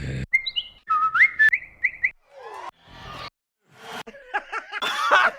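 Short one-shot samples from a dembow sample library played back one after another: first a whistle with stepping, gliding pitch, then a brief noisy effect, and near the end a burst of clipped vocal-like sounds.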